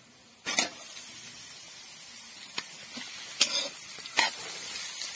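Shredded cabbage and carrot hitting hot oil in a kadai: a sudden loud sizzle about half a second in, then steady frying hiss as a steel spoon stirs and scrapes the pan, with a few sharp scrapes.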